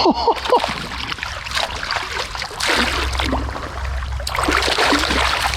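Stream water running and rippling, an even rushing hiss.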